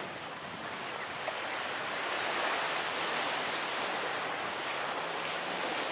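Steady wash of sea waves breaking on a beach, an even hiss of surf.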